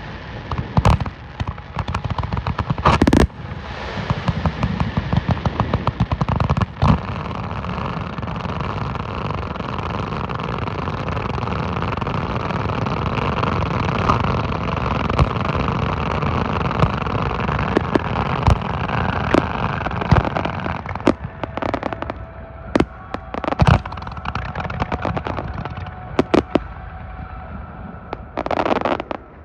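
Fireworks display: rapid strings of bangs and dense crackling over a steady rumbling wash, with a loud burst about three seconds in. After about twenty seconds the bangs come sparser and single.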